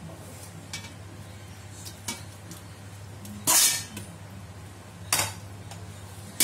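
Metal fork and slotted serving spoon clinking and knocking against a stainless-steel pot as cooked stuffed vegetables are lifted out: several separate knocks, the loudest about three and a half seconds in.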